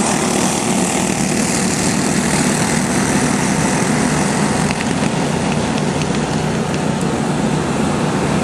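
A pack of box-stock racing go-karts running at speed, their small engines making a steady, even drone.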